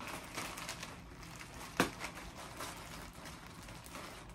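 Clear plastic packaging bag crinkling and rustling as a folded hoodie is pulled out of it, with one sharp click a little under two seconds in.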